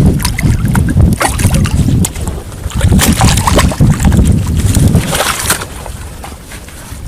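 Wind buffeting the microphone as a gusty low rumble, with scattered small clicks and knocks. The wind dies down about five and a half seconds in.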